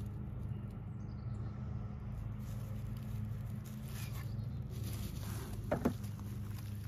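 Light pattering and rustling of footsteps through woodland ground cover, with a short, sharper rustle a little under six seconds in.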